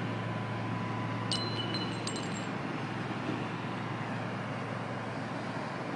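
A vehicle engine runs steadily as a low hum under a constant din. About a second and a half in comes a short, high metallic ring, like metal struck or clinking.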